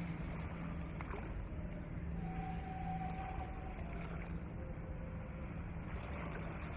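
Steady low rumble and hum of a ship under way, with faint brief held tones that come and go higher up.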